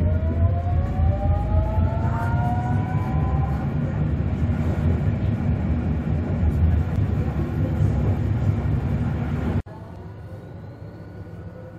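Tatra KT4D tram heard from inside the car: the traction motors whine, rising in pitch over the first few seconds as it accelerates, over a steady low rumble of the running gear on the rails. Near the end the sound drops abruptly to a quieter rumble.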